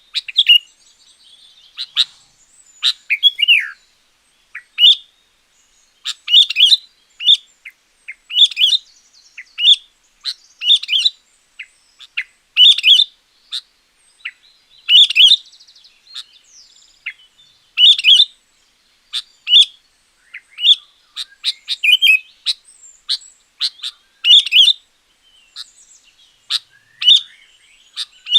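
Sooty-headed bulbul (kutilang) singing: a long run of short, loud song phrases, about one a second, with brief gaps between them.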